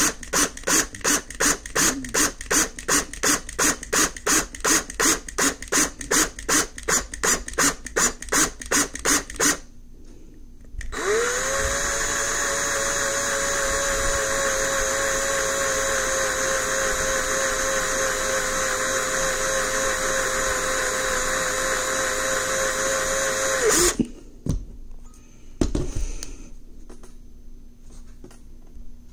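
Cordless drill drilling out the rivet post of a diecast metal Hot Wheels base, first pulsed in short bursts about three times a second, then run steadily for about thirteen seconds, its pitch rising as it spins up and cutting off sharply. Two brief knocks follow as the drill and part are handled.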